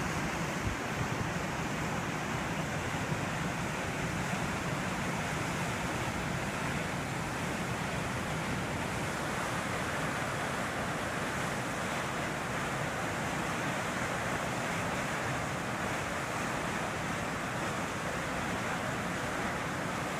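Waterfall plunging into its pool: a steady, even rushing of falling water.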